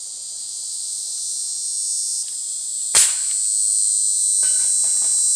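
A single sharp crack from a pellet rifle firing, about three seconds in, over a steady, high-pitched insect chorus.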